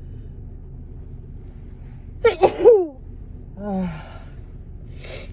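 A person sneezes once about two seconds in, a sudden loud outburst with quick catches of breath leading into it, from a stuffy, runny nose. A short, quieter falling vocal sound follows about a second later, then a brief breathy noise near the end.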